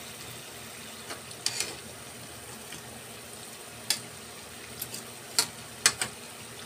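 Tikoy turon (rice-cake spring rolls) deep-frying in a pan of oil: a steady sizzle with sharp pops of spattering oil scattered through it, the loudest two close together near the end.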